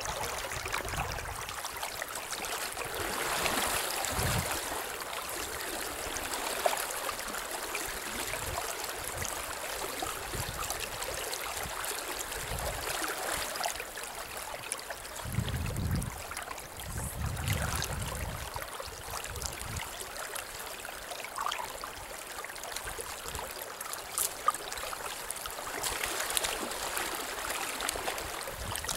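River water flowing steadily over a riffle, an even rushing sound, with a few brief low rumbles at the bottom of the sound.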